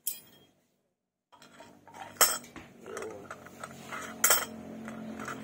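Metal clinks and scrapes of a metal tool against the new bearing and spacer in a motorcycle wheel hub. Two sharp clinks stand out, about two and four seconds in.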